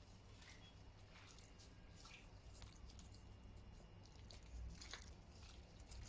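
Faint, irregular wet squelching of raw meat chunks being kneaded and turned by a gloved hand in a steel pot.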